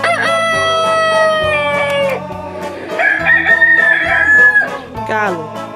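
Rooster crowing twice: a long crow that falls away at its end, then a second shorter crow, over background music.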